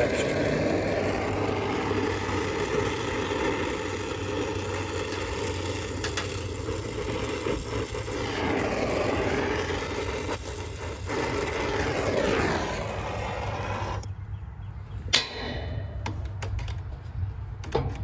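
Oxy-acetylene torch flame burning with a steady hiss while brazing a copper refrigerant line. About fourteen seconds in it stops abruptly, and a single sharp knock follows about a second later.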